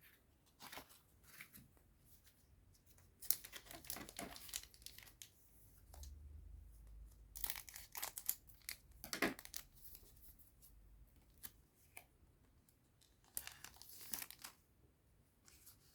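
A trading-card booster pack wrapper being torn open and crinkled, in a few short, irregular bursts.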